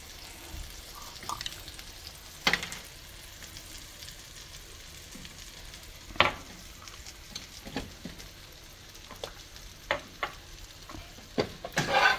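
Scrambled eggs sizzling softly in butter in a frying pan, with a metal slotted spatula scraping and tapping against the pan every second or two; the loudest scrapes come near the end.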